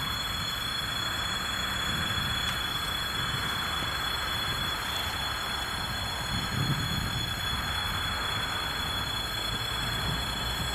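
Distant 2M62U diesel locomotive running as it approaches along the track, a steady low rumble.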